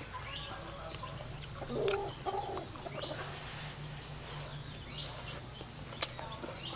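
Domestic chickens clucking a few times, loudest about two seconds in, with a few light clicks of a metal spoon against a bowl.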